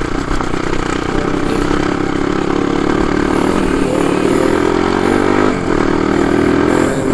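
Crossfire 250 dirt bike engine running under way at a steady pace, its note dipping briefly about five and a half seconds in.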